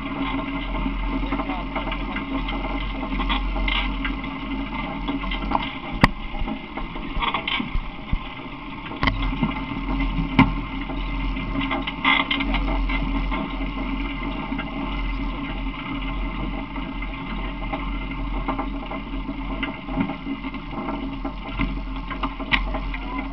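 Steady drone of a vehicle engine and wind rumbling on the microphone while riding in an open vehicle, broken by a few sharp knocks about six, nine and ten seconds in.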